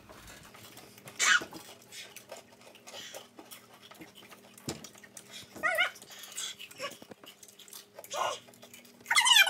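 Short high-pitched whimpering cries, a few separate ones, with a breathy gasp about a second in.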